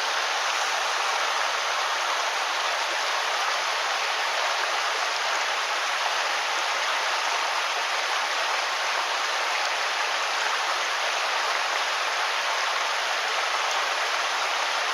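Mountain stream water rushing and splashing over rocks: a steady, even rush with no breaks.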